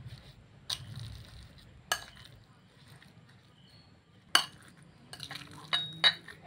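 Metal spoon clinking against a bowl while mixing minced meat with seasonings: a few sharp clinks a second or more apart, then two close together near the end, the last ringing briefly.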